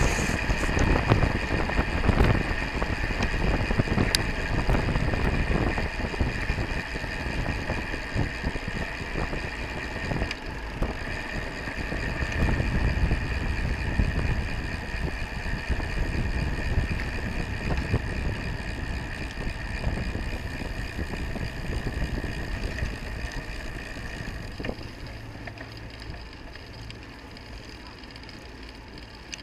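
Wind rushing over a bike-mounted camera's microphone, with tyre and road noise from the moving road bike, fading gradually over the last several seconds as the bike slows.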